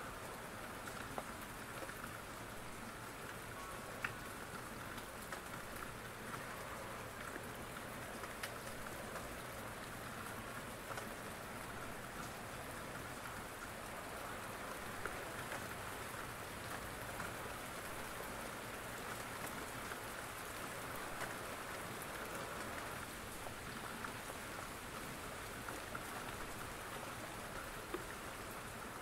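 Steady rain falling, an even hiss with scattered sharp little ticks of drops.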